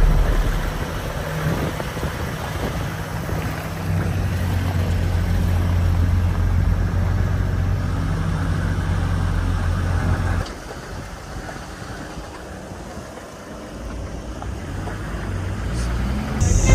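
Off-road 4x4 jeep's engine running steadily with road noise. It drops away sharply about ten seconds in, then builds up again near the end.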